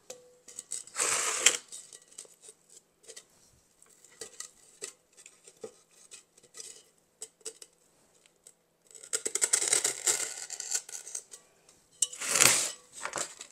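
Scissors cutting into a block of green floral foam: a crunching, scraping noise in a few bursts, about a second in, for a couple of seconds near the end, and once more just before the end, with small clicks of the blades and handling in between.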